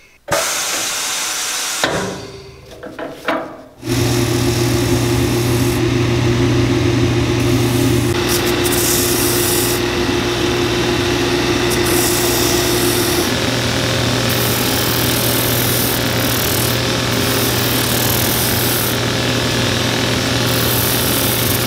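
Cobbler's finishing machine running steadily with a low hum as a new rubber boot sole edge is sanded against its spinning wheel. The machine starts about four seconds in, after a short burst of noise and a few knocks.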